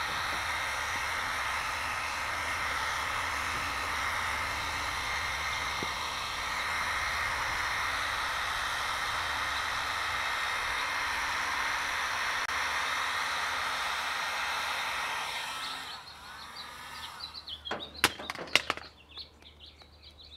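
Heat gun blowing steadily on a CRT's bonded safety glass, softening the clouded, bubbled bonding layer (the 'cataract'), then shut off about three-quarters of the way through. A few sharp cracks and clicks follow as the glass is worked with both hands.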